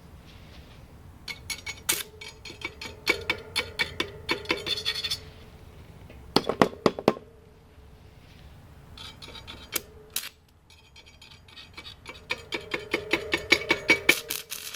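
Stick welding arc powered by car batteries joined with jumper cables, crackling and sputtering in several runs of a few seconds each, with a steady hum under the crackle and short breaks between runs.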